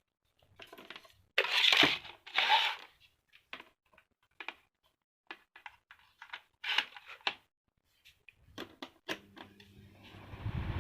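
Scattered clicks and rustling handling noises, with two louder crinkling scrapes about two seconds in. Near the end the table fan's electric motor comes on with a low steady hum and the rush of air starts to build as the fan spins up.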